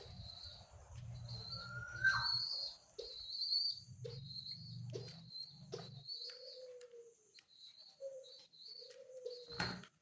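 Domestic pigeon squab being hand-fed, giving repeated high-pitched begging squeaks, with a low fluttering rumble during the first six seconds. A single sharp click comes just before the end.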